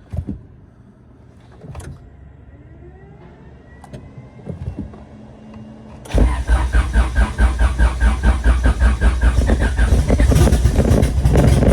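Honda Civic EK's turbocharged B18C engine cranking on its starter without catching, a loud rhythmic churn about five times a second that begins suddenly about six seconds in; the engine is slow to fire in the cold. Before it, a few knocks and a faint rising whine.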